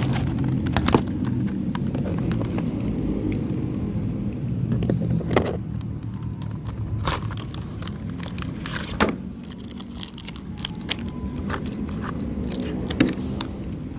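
A steady low hum with scattered sharp clicks and knocks, the loudest about a second in, near 9 s and near 13 s.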